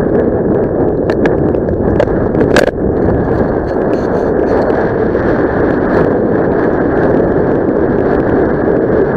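Wind buffeting the microphone: a loud, steady rush, with a few sharp clicks in the first three seconds.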